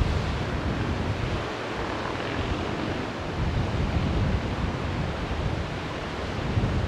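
Wind buffeting the microphone: a steady rushing hiss with an uneven low rumble.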